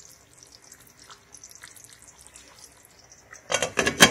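Egg gravy simmering in a pan with faint, small bubbling pops, then a glass pan lid set down on the pan near the end, clattering with a few knocks and one sharp clack.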